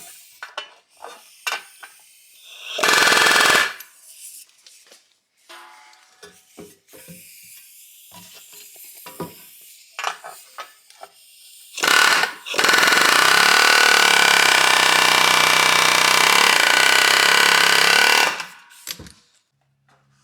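Power tool running: a short burst about three seconds in, then a steady run of about six seconds from about twelve seconds in, with light clanks and taps of tools and metal in between.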